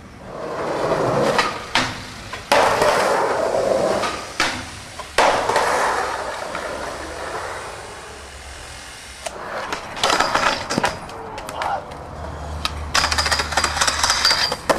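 Skateboard wheels rolling on hard ground, broken by sharp clacks of the board popping and landing. There are several in the first few seconds, more about ten seconds in, and a dense run of knocks near the end.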